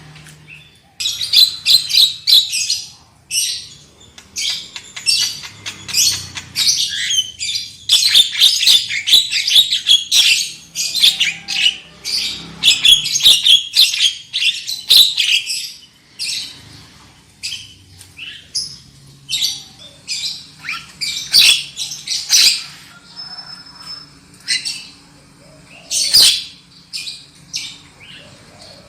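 Javan myna (jalak kebo) singing in loud, harsh chattering runs of rapid squawks and chirps, broken by short pauses, with one brief clear whistle about two-thirds of the way through.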